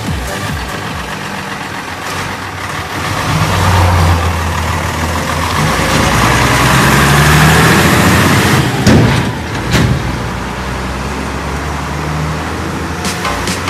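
Deutz-Fahr tractor's diesel engine towing a trailer, rising in pitch and growing louder as it pulls out and accelerates past, then running steadily as it moves away. Two sharp knocks come about nine and ten seconds in.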